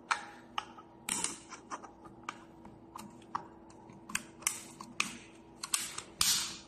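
Irregular plastic clicks and short scrapes of a fat-freezing machine's handpiece cup and side clips being handled and pressed into place, with a longer rasp near the end. A steady low hum from the running machine sits underneath.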